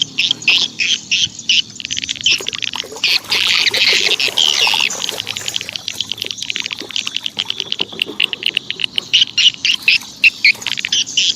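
Birds and insects chirping in quick, even, high repeated calls, with a brief rush of noise about three seconds in.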